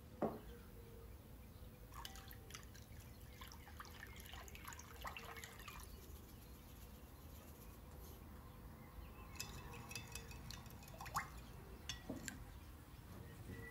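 Kitchen food-preparation sounds: a single sharp knock just after the start, then two spells of light clicking and tapping of utensils on dishes.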